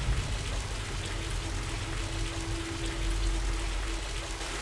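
Water running steadily, a rushing, stream-like sound of water flowing and pouring.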